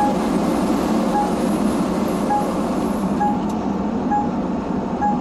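Short, single-pitched beeps about once a second from a semi-truck's in-cab warning alert, over the steady running noise of the truck on the highway heard from inside the cab.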